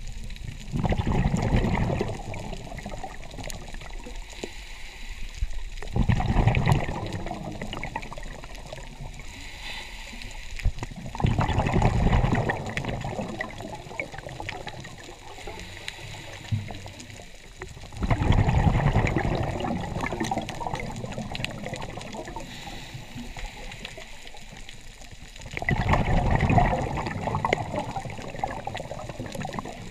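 Scuba diver's exhaled bubbles from a regulator, heard underwater: five bubbling bursts of two to three seconds each, about every six seconds, with quieter water noise between.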